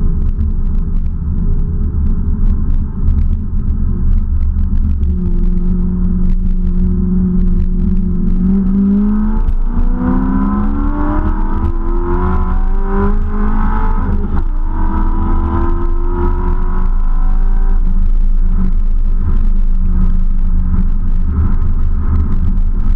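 Muscle car engine and road rumble heard from inside the cabin while cruising on a highway. Partway through, the engine note climbs in several short rising steps as the car accelerates, then it settles back to a steady drone.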